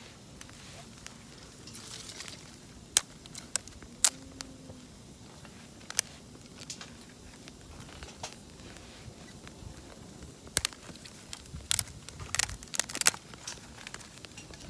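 Wood campfire crackling, with sharp irregular pops over a low hiss of the fire, a quick run of several pops in the second half.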